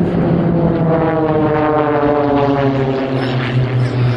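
Propeller engines of a formation of aerobatic display monoplanes passing overhead. Their drone falls steadily in pitch from about a second in as they go by.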